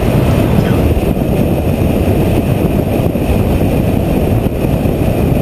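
Steady in-cabin noise of a Stage 2 tuned 2012 VW Jetta GLI with a turbocharged 2.0 TSI engine cruising at highway speed: engine drone mixed with tyre and wind noise, with no rise or fall in engine pitch.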